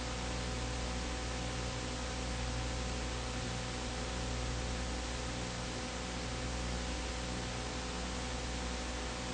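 Steady hiss with a low electrical hum and nothing else: the noise floor of a silent home-movie transfer.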